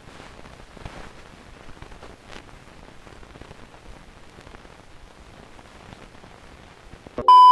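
Faint hiss with light crackles. Near the end a loud, steady electronic beep at one pitch starts abruptly and holds.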